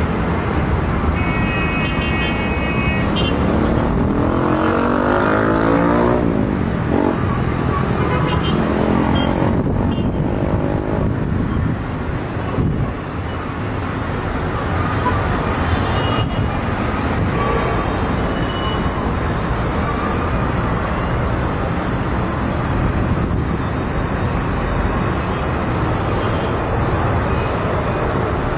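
Steady motor-vehicle engine and traffic noise, with one vehicle passing about five seconds in and a brief high tone near the start.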